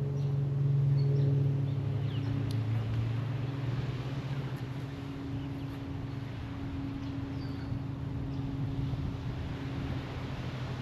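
A steady low engine hum with a few faint, brief bird chirps above it.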